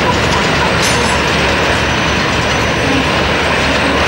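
Wright R-3350 radial piston engines of a Lockheed Super Constellation running steadily after start-up: a loud, even rumble.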